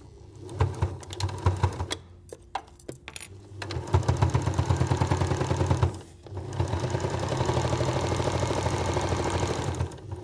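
Janome domestic sewing machine stitching a side seam through several layers of oilcloth: a few short stop-start bursts first, then steady running, a brief stop about six seconds in, and steady running again until just before the end.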